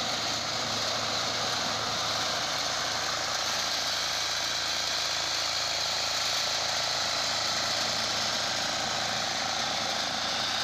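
Walk-behind power reaper's small engine running steadily as its cutter bar mows through standing crop.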